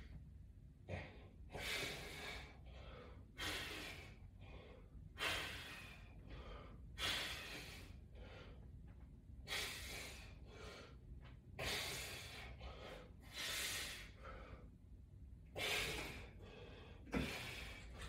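A man breathing hard through a set of resistance-band pulls, a short forceful breath with each repetition, about ten in all, one every one and a half to two seconds.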